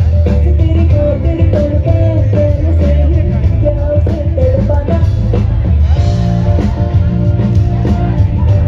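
Live band music over a loud PA system: a woman singing with guitar and drum kit, with deep bass as the loudest part.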